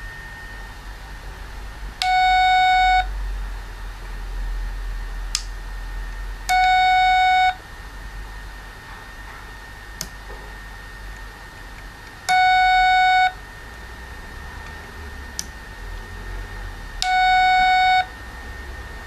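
556 dual-timer beep circuit sounding four one-second beeps, all at the same mid pitch, roughly every five seconds. A faint steady high tone runs underneath, and faint single clicks fall between the beeps.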